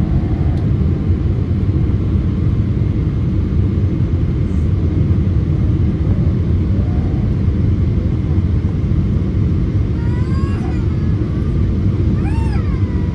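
Steady low rumble of jet engines and rushing air inside an airliner cabin on approach to land. A short high-pitched voice cuts through twice near the end.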